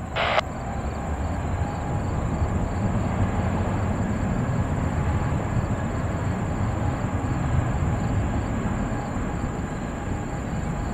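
Jet engines of a departing Boeing 777-300 making a steady, continuous low rumble.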